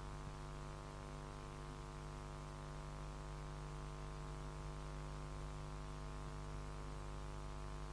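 Steady electrical buzzing hum with hiss: the background noise of an old film's soundtrack transfer, with no speech or music.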